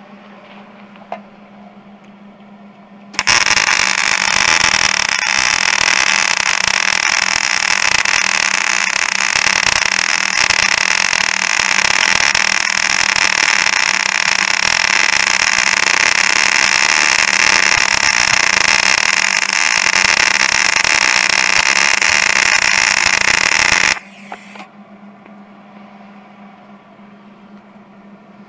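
MIG welding arc on a steel snowmobile ski: a steady crackling hiss that starts suddenly about three seconds in and cuts off about twenty seconds later as one long bead is laid.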